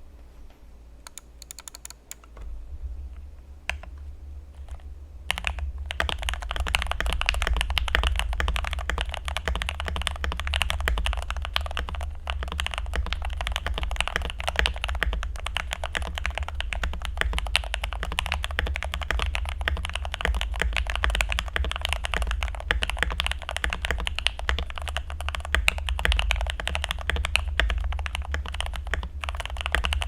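Typing on an Akko 3098N mechanical keyboard with lubed Gateron Milky Yellow linear switches, foam- and tape-modded for a creamy, thocky sound. A few separate keystrokes come first, then continuous fast typing starts about five seconds in.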